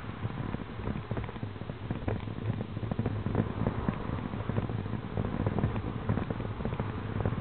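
Wind rushing and buffeting on the microphone with road noise while riding a bicycle beside highway traffic, broken by frequent irregular knocks and rattles.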